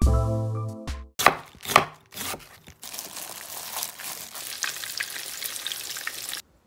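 The tail of a short music jingle, then a few sharp knocks, then breaded minced-pork cutlets (menchi katsu) sizzling as they deep-fry in oil, in a steady hiss that cuts off suddenly near the end.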